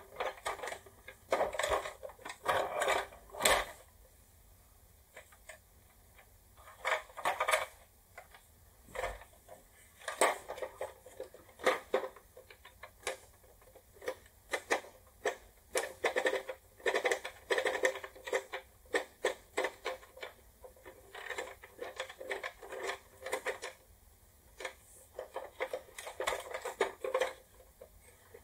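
Plastic parts of an old toy mechanism clicking and clattering as they are handled, in irregular clusters of short clicks and knocks with brief pauses between.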